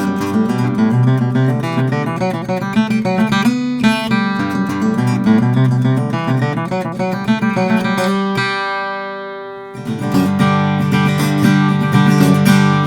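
Martin 00 custom acoustic guitar with a birdseye maple back being played, a run of picked and strummed notes and chords. A little past halfway a chord is left to ring and die away, then the playing picks up again.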